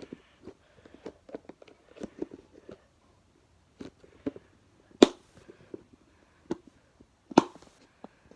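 Plastic slime containers being handled: a run of small clicks and taps, with two sharp knocks, one about five seconds in and another about two and a half seconds later.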